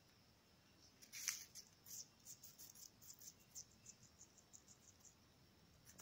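Faint, quick clicks of a green parakeet's beak biting and nibbling a piece of apple. The clicks come about three or four a second, starting about a second in, and stop a little past halfway.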